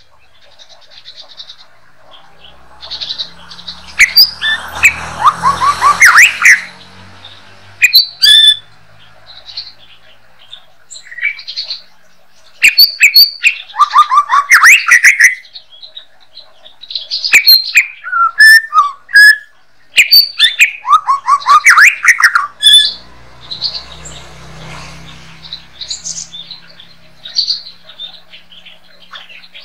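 White-rumped shama singing in short bursts of varied song: clear whistles, fast sweeping trills and sharp clicks, with pauses between phrases.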